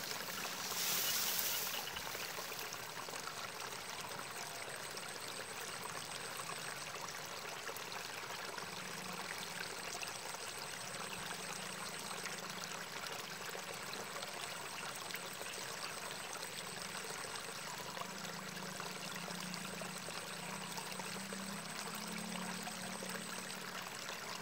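Steady rush of water trickling through a small, weedy irrigation channel. About a second in there is a brief, louder burst of noise.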